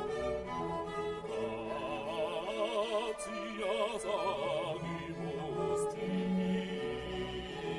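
Background classical music with an operatic voice singing with vibrato. Three faint short clicks come through about three, four and six seconds in.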